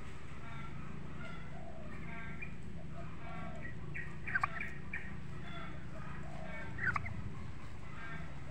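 Domestic tom turkeys calling, with two short loud gobbles about four and a half and seven seconds in, over repeated softer calls from the birds.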